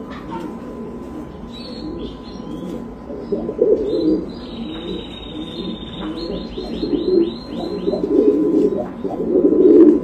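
Buchón pouter pigeons cooing in repeated low, throaty phrases that swell near the middle and again toward the end. Above them a small bird chirps thin and high, ending in a quick run of notes.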